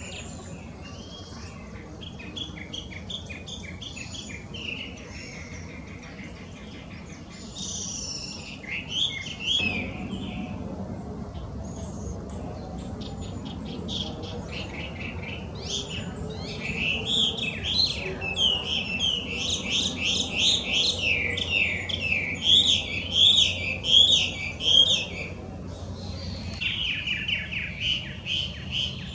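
Chinese hwamei (Garrulax canorus) singing a loud, varied song of whistled phrases. From about halfway it turns into fast runs of repeated up-and-down notes, the loudest part, with a short break near the end before the song resumes.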